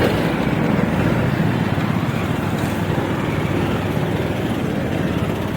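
A vehicle engine running steadily, a low rumble with a dense rough texture.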